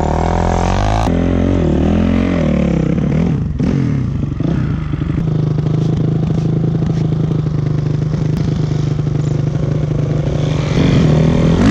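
Dirt bike engine running under load, revving up and down for the first few seconds, then holding a steady pitch before rising again near the end.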